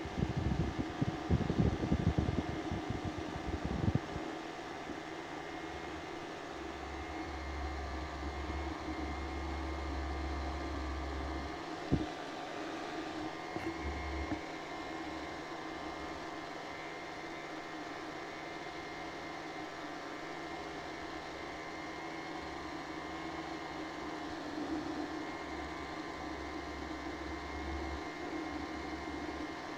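Paramotor engine and propeller running steadily in flight, a constant drone. In the first few seconds wind gusts rumble over the microphone.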